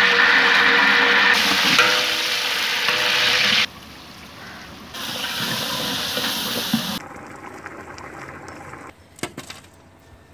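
Water rushing and pouring in several stretches that start and stop abruptly, loudest in the first few seconds, with a few clicks near the end.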